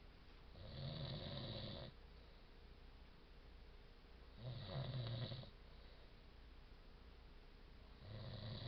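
A man snoring while asleep: three snores about three and a half seconds apart, each lasting about a second.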